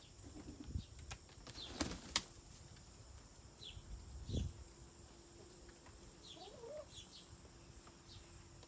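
Backyard hens at the coop's pop door: a brief flurry of wing flaps and knocks about two seconds in, then a few short, soft hen calls and some brief high chirps.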